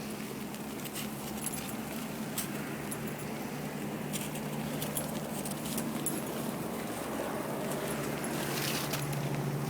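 Freezing rain falling steadily, with scattered sharp ticks over a low steady hum.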